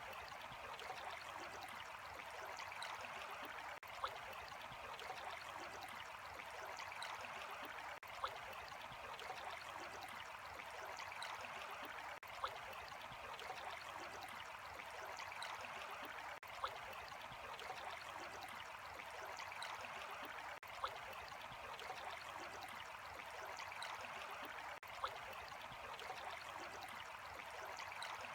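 Running water, a small stream trickling and burbling steadily, with a brief click about every four seconds.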